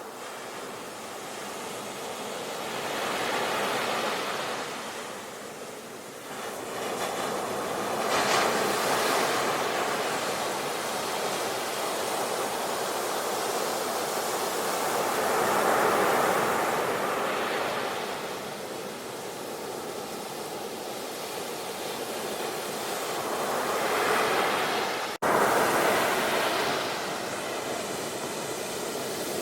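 Sea waves breaking and washing up the shore, the surf swelling and ebbing every few seconds. There is a momentary dropout near the end before the surf comes straight back.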